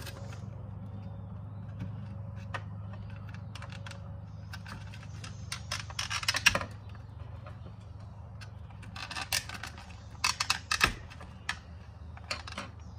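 Clear plastic packaging crinkling and crossbow bolts clicking and rattling as they are unpacked and handled, in bursts around the middle and again late on, over a steady low hum.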